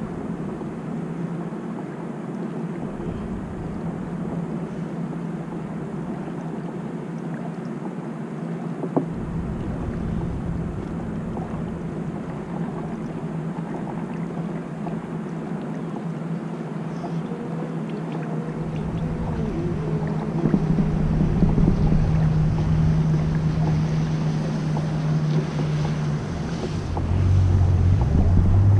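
Wind and water noise on open water with the steady drone of a boat engine that grows louder in the second half. Near the end a second, lower engine note comes in and rises in pitch.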